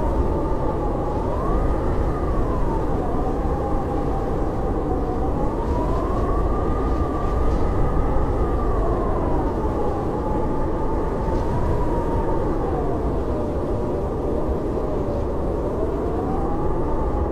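Howling blizzard wind: a steady low rush with a whistling howl that slowly rises and falls in pitch.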